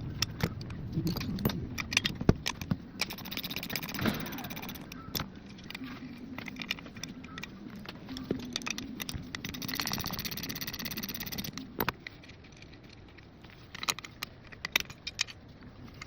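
Metal winch parts clinking and knocking as they are handled on a workbench: many sharp taps, with two longer stretches of rattling.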